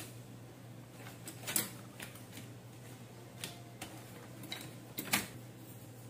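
Craft materials being handled on a worktable: several short, sharp taps and clicks at irregular intervals, the loudest a pair about five seconds in, over a steady low hum.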